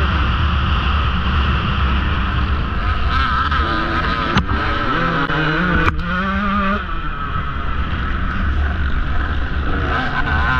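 KTM 150 XC-W two-stroke dirt bike engine running hard under the rider, its revs dropping and climbing again midway, with two sharp knocks about a second and a half apart.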